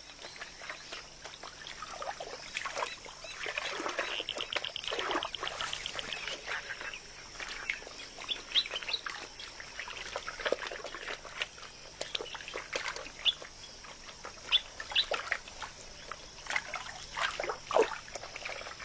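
Wetland birds calling with scattered short chirps and squawks, including a fast, evenly pulsed trill about four seconds in, over a faint trickle of water.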